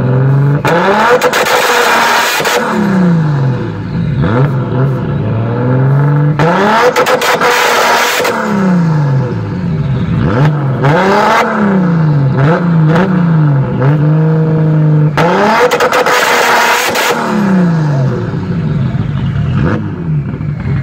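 Nissan Skyline R32 GT-R's RB26 straight-six, converted to a big single turbo with big cams, revved over and over by the driver. Three times it is held on the launch-control limiter for about two seconds, crackling and banging.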